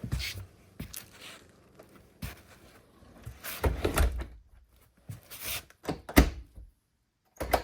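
Wooden front door being shut and its latch and deadbolt worked to test newly lowered striker plates: a series of knocks and clicks, the loudest a sharp thunk about six seconds in, as the bolts catch in the plates.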